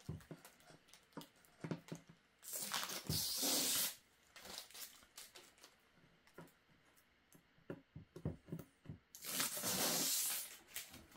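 Protective plastic film being peeled off a new part in two long pulls, the first about two and a half seconds in and the second near nine seconds, with light handling knocks and rustles between.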